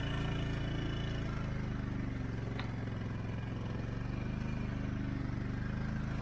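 ATV engine running steadily in low gear at a slow crawl, a constant low drone.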